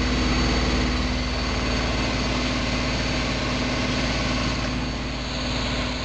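Front-loading washing machine spinning fast, with a steady whirring drone and a low hum.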